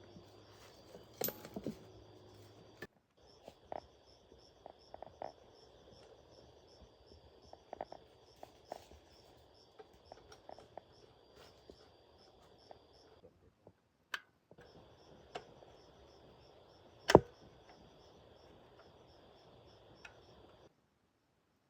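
Steady high insect chorus, crickets or cicadas, with scattered light clicks and knocks of hand-tool work and one loud sharp knock about two thirds of the way through. The background cuts out abruptly twice for a moment.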